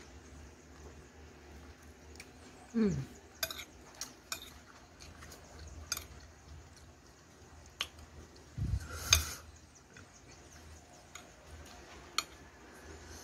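Metal spoon clicking against a ceramic plate a dozen or so times while someone eats curry and rice, with mouth sounds in between and a louder breathy sound about nine seconds in.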